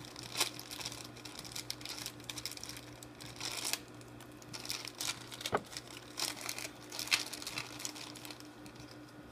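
Packaging of a fast-food kids' meal toy being crinkled and torn open by hand: irregular rustling with a few sharper crackles.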